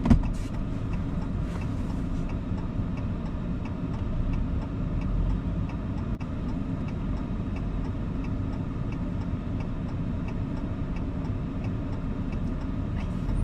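Vehicle engine running steadily, heard from inside the cab, with a light, regular ticking over it. There is a single sharp knock at the very start.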